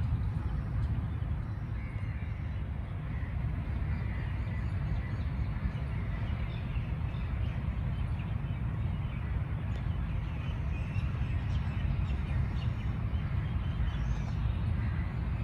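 Birds calling intermittently over a steady low rumble.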